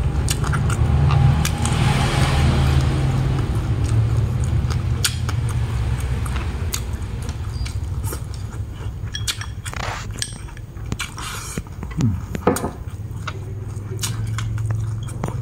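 Close-miked eating: wooden chopsticks click against a ceramic rice bowl as crispy-fried pork belly and rice are chewed, in many short sharp clicks over a steady low hum.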